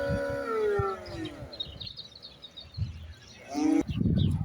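A droning pitched tone falls in pitch and fades during the first second and a half, then small birds chirp. Near the end, wind buffets the microphone.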